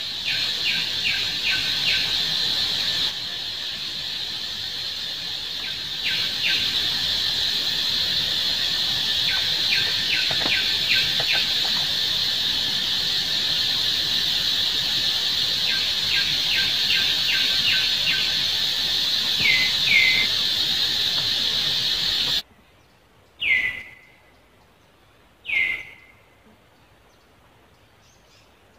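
Runs of short, high chirps over a steady high-pitched drone, which cuts off suddenly; then, against quiet, two loud squeals that fall in pitch, from a baby long-tailed macaque.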